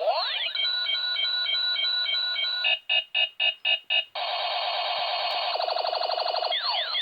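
Electronic alarm cycling through its tone patterns: a rising sweep, a steady buzzing tone, a run of about six quick beeps, another steady tone, a fast warble, then sweeping whoops near the end.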